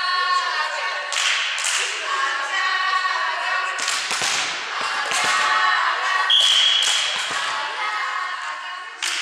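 Several girls' voices calling and chanting together in a sports hall. A few dull thumps come around the middle. About six seconds in, a referee's whistle gives one short blast that signals the serve.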